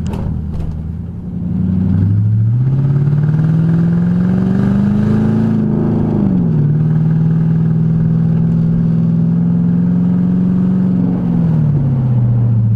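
Lexus LS400's 1UZ V8, loud on its incomplete exhaust, pulls up through the revs for about four seconds, drops sharply on an upshift, holds steady, then falls away near the end as the car eases off.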